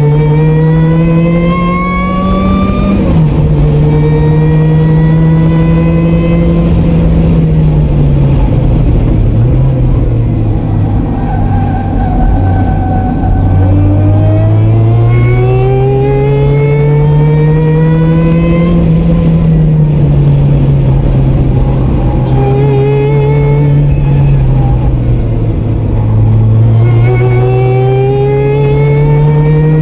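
Supercharged Mazda Miata four-cylinder engine (Eaton MP62 blower) under hard track driving, revs climbing and falling several times. There is a sudden drop in pitch about three seconds in, long climbs as it accelerates, and a brief rev jump about two-thirds through.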